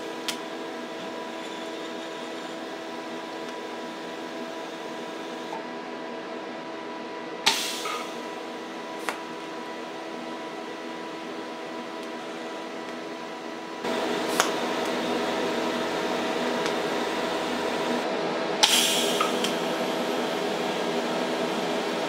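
TIG welder tacking steel cutlery: a steady electrical hum from the welding machine, broken three times by a short sharp crackle as the arc is struck. The hum gets louder about two-thirds of the way through and holds there.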